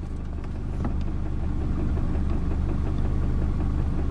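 Mercedes-Benz W124 engine idling at a standstill with a rattling knock from the manual gearbox, a sign of wear in the input shaft, the needle bearing between the input and output shafts, or the cluster gear. The low hum grows slightly louder about a second in.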